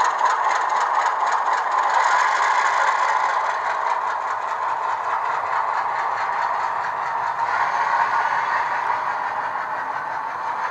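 Model diesel locomotive running with its ESU LokSound V4 decoder playing an Alco RS-2 engine sound through a small speaker, mixed with the clatter of the model's wheels and drive on the track. The sound is steady and fades slightly towards the end.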